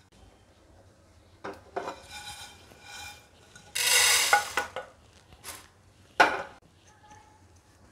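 Roasted coriander seeds poured from a non-stick pan onto a plastic plate: a brief rushing pour about four seconds in, the loudest sound. Around it come a few short knocks and clatters of the pan and plate on the glass-top stove.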